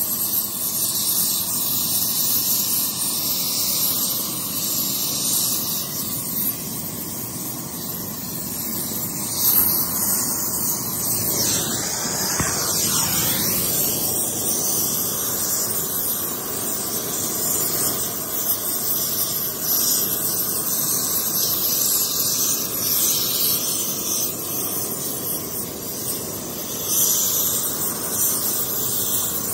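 Gas torch flame hissing steadily as it heats a new starter ring gear on a flywheel, so the ring expands enough to drop onto the flywheel for a shrink fit.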